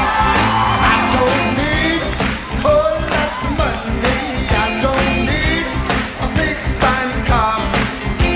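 Live rock band playing: a male lead singer sings over drums and electric guitar.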